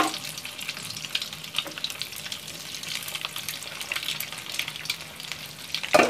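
Breaded mutton chops shallow-frying in hot oil in a pan: a steady crackling sizzle with many small pops. A single knock comes near the end.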